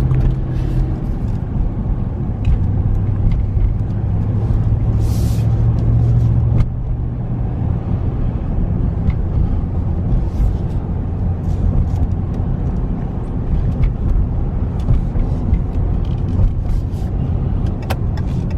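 Pickup's 5.7-litre Hemi V8 and tyre noise heard from inside the cab while driving, a steady low drone. It eases slightly about six and a half seconds in.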